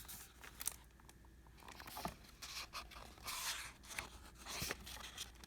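Paper rustling: several soft swishes and a few small clicks and taps as the stiff pages of a picture book are handled.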